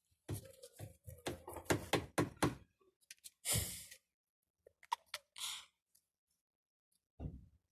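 A quick run of knocks and clicks, then two short hissing bursts and a dull thump near the end.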